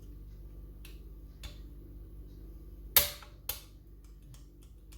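Small metal clicks of a wire pick and tension tool working the levers of a mortice lever lock: a few light ticks, a sharp click about three seconds in and a second one half a second later, over a steady low hum.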